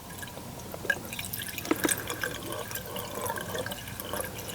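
Vinegar and water mixture being poured into a furnace condensate drain line, with light, irregular splashing and dripping as it runs down the drain.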